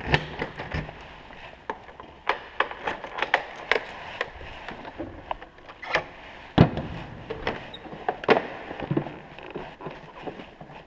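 Handling noise of a camera being held and fitted close to the microphone: irregular clicks, taps and knocks over rustling, with a couple of louder knocks partway through.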